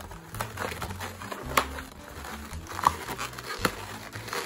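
Inflated grey 260 latex twisting balloons rubbing and squeaking against each other as they are twisted and handled, with three sharp squeaks about a second apart.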